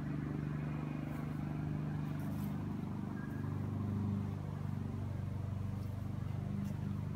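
A steady, low, unchanging drone of a running engine.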